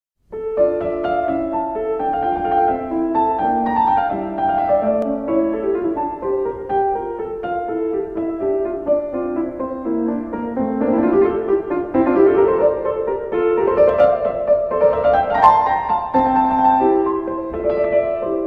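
Piano music: a melody of quick separate notes, with rising runs of notes about two thirds and four fifths of the way in.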